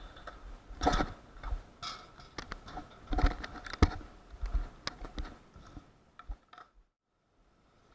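Skateboards clattering on the concrete of a skate park: irregular clicks and knocks of boards and wheels, with one sharp crack about four seconds in. The sound fades out and drops to a moment of dead silence near the end.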